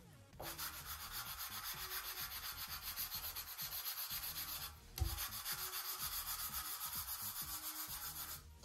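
Sandpaper block being rubbed back and forth over a sheet of balsa wood in quick, even strokes, smoothing the joined wing skin. The strokes break off briefly a little past halfway, with a thump as the block comes down again.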